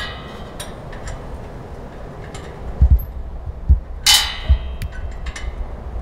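Metal hardware of a motorcycle carrier's loading ramp being handled and fitted: scattered clicks and dull knocks, and one ringing metal clank about four seconds in.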